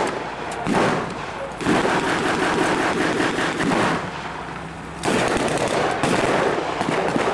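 Machine guns and rifles firing blanks in a reenacted WWII battle: rapid, dense bursts of shots. The firing eases briefly about four seconds in, then picks up again.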